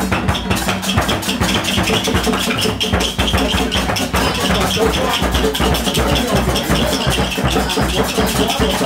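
Loud music with a fast, steady beat over held tones.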